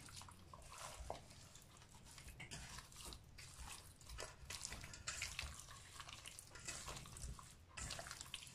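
Hands squishing and turning boneless chicken thighs in a wet spice marinade in a stainless steel bowl: irregular wet squelches.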